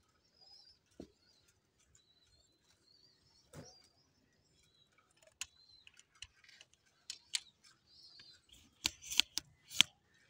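Pigeons pecking at grain on bare concrete: scattered faint clicks and taps, with a run of sharper, louder clicks near the end. Faint high bird chirps come in the first couple of seconds.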